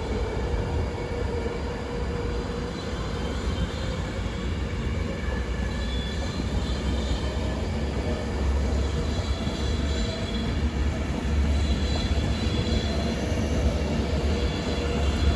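Class 390 Pendolino electric train pulling away from the platform: a steady rumble of wheels and traction equipment with faint whining tones, slowly growing louder.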